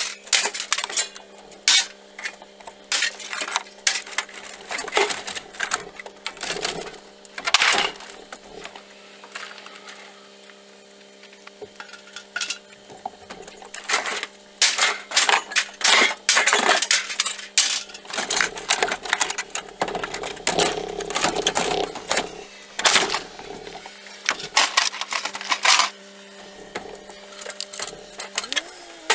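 Scrap steel being unloaded by hand from a pickup truck bed: irregular clanks, bangs and scrapes as sheet-metal panels and a steel hot water tank are dragged across the bed and dropped off. A steady low hum runs underneath.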